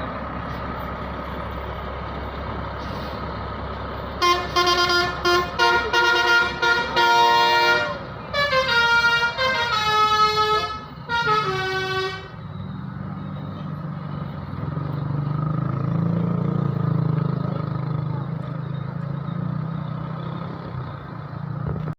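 A bus's 'telolet basuri' musical air horn playing a loud tune of stepped notes, some of them sliding, for about eight seconds, starting about four seconds in, over the steady running of the engine. After the horn stops, the engine keeps running with a deeper drone that grows louder for a while.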